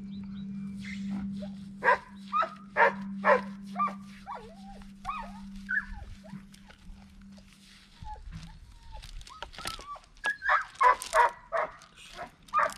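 A dog barking and whining: a run of sharp barks in the first few seconds, then whines and yelps, then another run of barks near the end. A steady low hum runs underneath and stops about eight seconds in.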